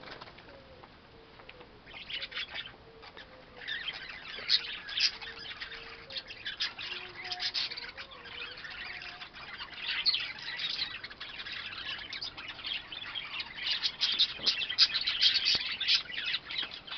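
A flock of budgerigars chattering and warbling. It starts about two seconds in, grows busier and is loudest near the end.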